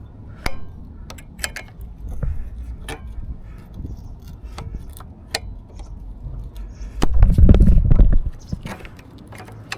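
Small metal clicks and clinks of hands and tools working the brake pads and pad pin out of a motorcycle's front brake caliper, with a loud low rumbling thump lasting about a second, some seven seconds in.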